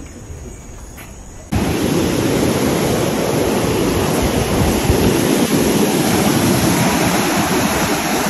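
Surf washing up a sandy beach, with heavy wind noise on the microphone, cutting in suddenly and loudly about a second and a half in. Before that, quieter rainforest ambience with insects.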